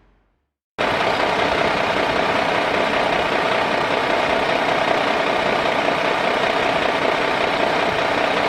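A loud, steady mechanical running noise, engine- or motor-like, that starts abruptly about a second in and holds without change.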